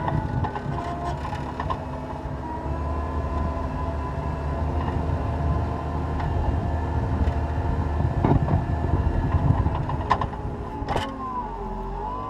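Cat 236B skid steer loader's diesel engine running steadily under load while plowing snow, with a few sharp clanks. The engine pitch dips and recovers near the end.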